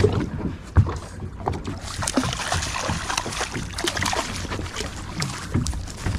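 A hooked hamachi (young yellowtail) thrashing and splashing at the water's surface beside the boat as it is scooped into a landing net, with a sharp knock a little under a second in.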